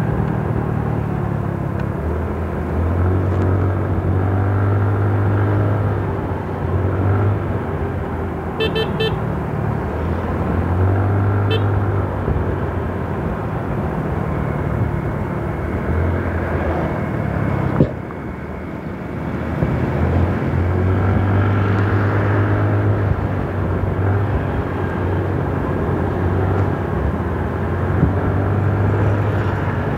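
Engine and wind noise of a vehicle travelling along a road, a low hum that swells and eases in turn. Two short high beeps come near nine and eleven seconds in, and a sharp knock comes about eighteen seconds in.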